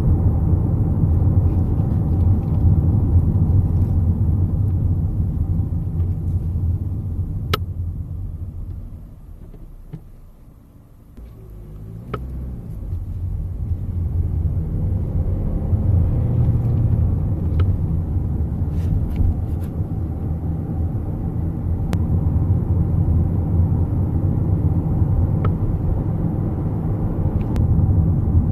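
Car cabin road rumble while driving, with a sharp click every few seconds from the Nissan Qashqai J11's driver's electric seat, the fault the owner is recording. The rumble fades for a few seconds near the middle, then builds back up.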